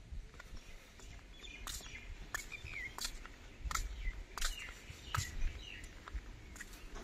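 Faint, scattered bird chirps over irregular light clicks and ticks.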